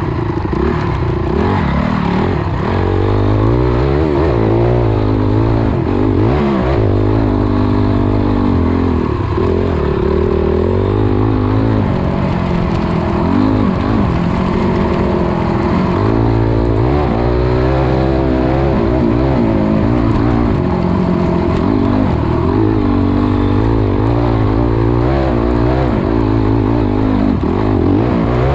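Dirt bike engine revving up and down while being ridden, its pitch rising and falling repeatedly with throttle and gear changes.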